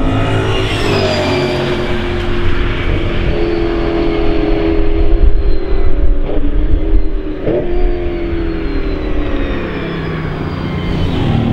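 BMW M3 E92 race car's 480 bhp V8 engine running hard on track, its pitch rising and falling through gear changes. It is loudest in the middle, with two quick breaks in pitch as it shifts.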